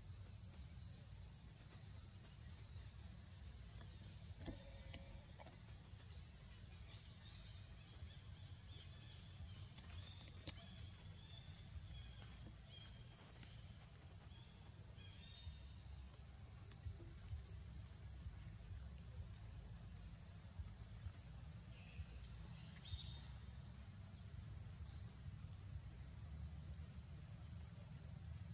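A faint, steady, high-pitched insect chorus with an even pulsing, over a low rumble.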